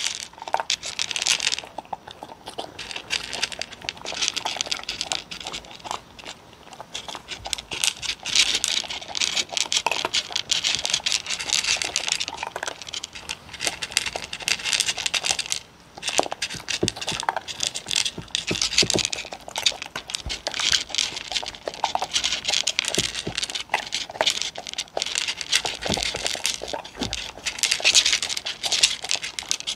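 Two dogs crunching dry kibble and nosing it around wooden bowls, close to a microphone: a dense run of crisp crunches and clicks, with a brief pause about halfway through.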